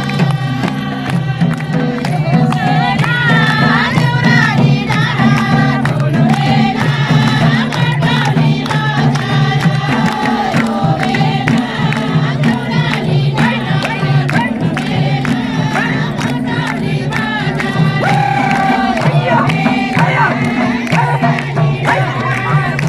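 Music: a singing voice with a melody that bends up and down in pitch, over a steady drum beat and bass.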